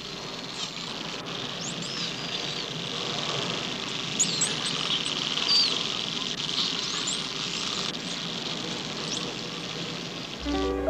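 Dolphins squeaking and clicking underwater: short high whistles that rise and fall, over a steady hiss of rapid clicks. Music comes in near the end.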